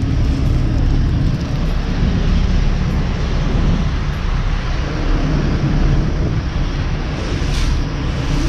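A vehicle engine running steadily under load, a dense low rumble throughout.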